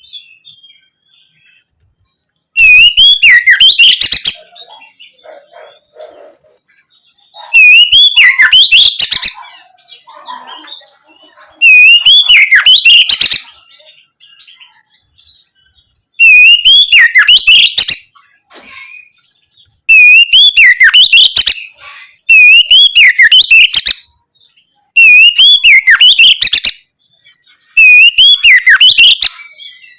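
Oriental magpie-robin (kacer) singing loudly in bursts of rapid, swooping whistled phrases. About eight phrases of one to two seconds each come with short pauses between them.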